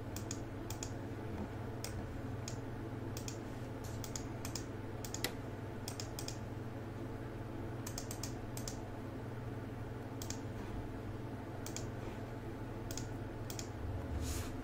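Computer keyboard keys and mouse clicks, scattered and irregular, a few a second, over a steady low hum.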